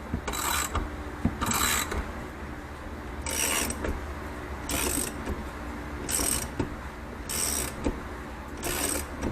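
Half-inch hand ratchet clicking in seven short strokes, about a second or so apart, as it turns down the threaded rods of a spring compressor to squeeze an ATV shock's coil spring.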